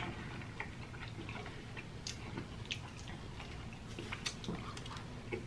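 Faint chewing and biting of fried chicken, heard as a scatter of small mouth clicks.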